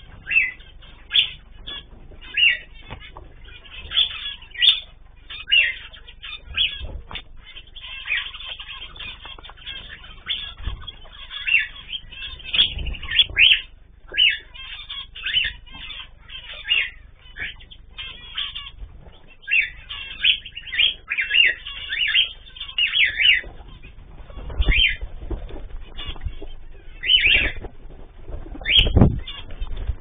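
A flock of zebra finches giving short chirping calls, many overlapping, with flapping wings that land as several low thumps.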